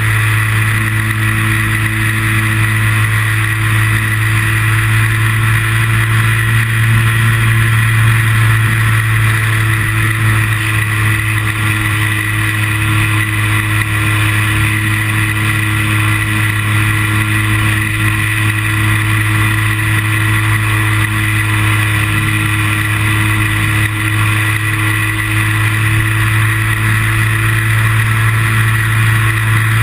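Model airplane's motor and propeller running steadily at cruising power, heard close up from the plane's onboard camera as a loud, even drone.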